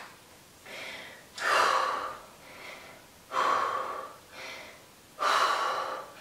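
A woman breathing hard, out of breath from exertion: three loud breaths about two seconds apart, with quieter breaths in between.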